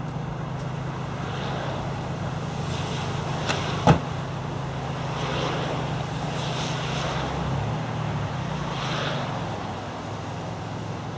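Toyota pickup truck's engine running steadily, with one sharp knock about four seconds in and a few brief hissy rustles.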